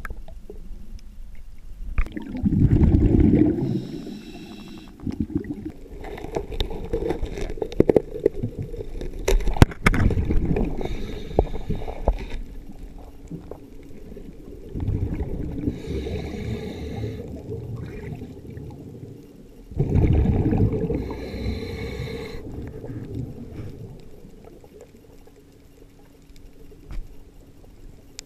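Underwater sound: a diver's breathing at a slow, even rhythm, with rushes of exhaled bubbles a couple of seconds in and again near the end. Scattered sharp clicks come through between breaths.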